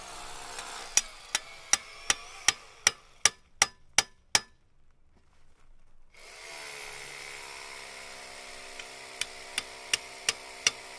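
Construction tools: a run of sharp, evenly spaced taps, about three a second, growing louder, then a short lull. About six seconds in a steady machine hum starts, and the taps come back near the end.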